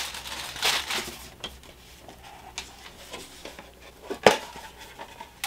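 Handling and opening a metal enamel watercolor palette: a few soft plastic rustles, then scattered light clicks and knocks of the metal case. The sharpest click comes about four seconds in.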